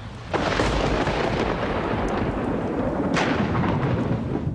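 Thunder: a sudden loud crash that rolls on for several seconds, with a second crash about three seconds in, then cuts off abruptly.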